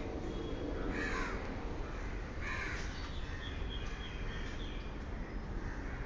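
A crow cawing twice, two short harsh calls about a second and a half apart, over a steady low background rumble.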